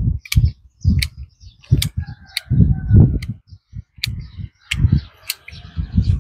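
Hand pruning shears snipping branches of a mai vàng (yellow apricot) tree as it is cut back: about seven sharp clips at irregular intervals, each with a dull knock.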